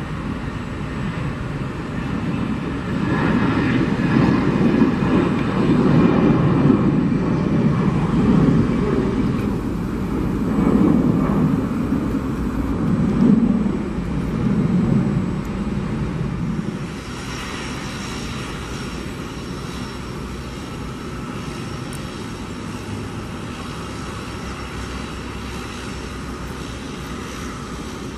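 Airbus A320 jet engines at takeoff thrust as the airliner lifts off and climbs away: a loud, wavering rumble that dies down about sixteen seconds in to a quieter, steady noise.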